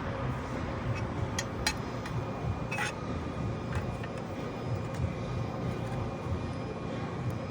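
Steady low machinery hum with a few sharp metallic clinks: two close together about a second and a half in, and another near three seconds.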